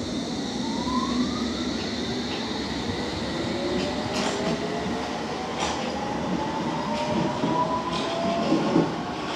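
London Underground S Stock train accelerating out of the platform, its traction motor whine rising steadily in pitch over a rumble of wheels, with a few clicks of wheels over rail joints.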